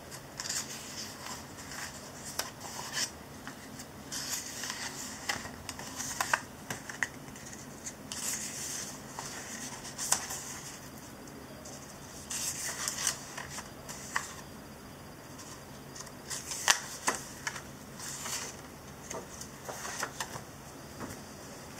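Pages of a paper booklet being turned and handled by hand: paper rustling in irregular bursts, with a few sharper snaps as pages flip over.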